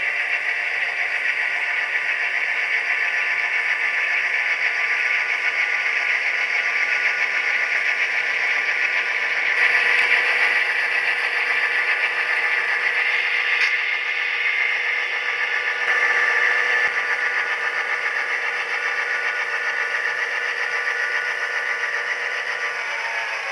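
Sound decoder's EMD diesel locomotive engine sound played through an HO-scale model's tiny speaker, running steadily with a thin, tinny tone and no deep bass. It swells slightly about ten seconds in and again a few seconds later.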